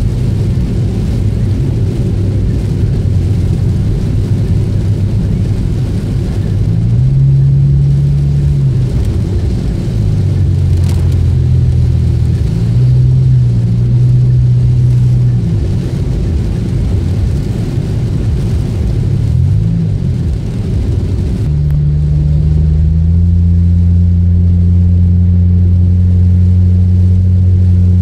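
Toyota Yaris 1.3 four-cylinder with an aftermarket dual-muffler exhaust, heard from inside the cabin while driving. It makes a low engine and exhaust drone that shifts in pitch several times as the car picks up speed. From about two-thirds of the way through it settles into a steadier, deeper drone at cruising speed.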